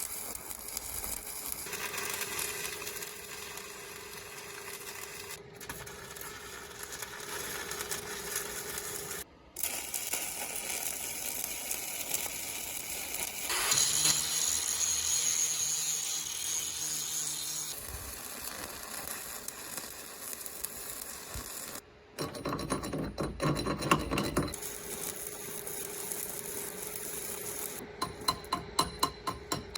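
A string of short workshop-work sounds cut together: a steady hum with a held tone, a stretch of hiss, a rapid clatter of metal knocks, and near the end a quick run of evenly spaced ratchet-like clicks.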